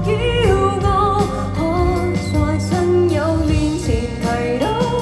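Live Cantonese pop ballad: a female singer sings the melody over band accompaniment.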